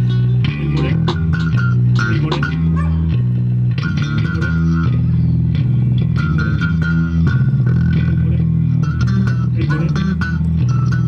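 Live music: an electric bass guitar and guitar playing, the bass holding steady low notes that change every second or so under plucked guitar notes.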